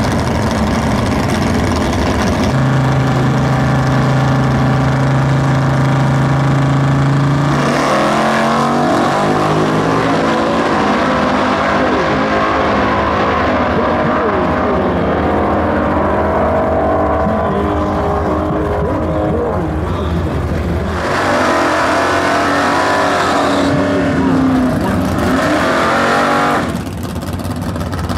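Vintage Super Stock muscle-car V8 drag racers at full throttle: engines held at a steady high rev for several seconds, then accelerating, their pitch rising and dropping back over and over.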